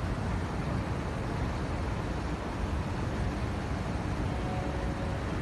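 Steady low rumble with hiss, like traffic or room noise, with faint steady tones near the end.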